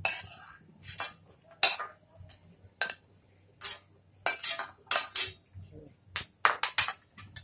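Spatula scraping and knocking against a kadai as fried cashews are scooped out of hot ghee: a string of sharp, irregular clinks and scrapes.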